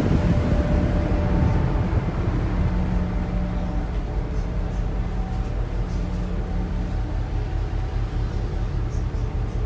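Steady low drone of a cargo ship's machinery, heard inside the accommodation while the ship is underway, with a few faint steady tones above it.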